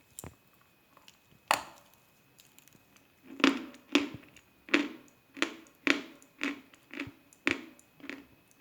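A crisp bite into a lump of Khrapovsky natural chalk about one and a half seconds in, then steady crunchy chewing of the chalk, about two chews a second.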